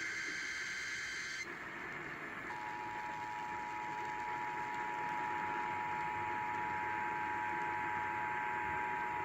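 Emergency Alert System broadcast heard over radio with steady background hiss. The warbling digital SAME header burst ends about a second and a half in. After a short gap, the steady two-tone EAS attention signal starts and holds, the alarm tone that precedes an alert message.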